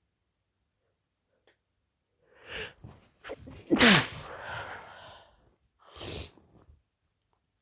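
A woman sneezing in a sneezing fit: sharp catching breaths, then one loud explosive sneeze with a voiced cry that falls in pitch and trails off in a breathy tail. A shorter breathy burst follows about two seconds later.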